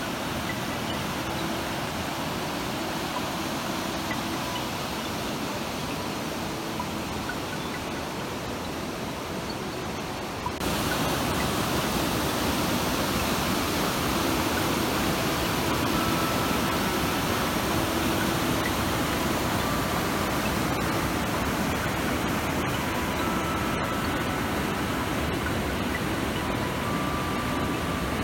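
Mountain river rapids rushing over boulders: a steady hiss of white water that turns louder about ten seconds in.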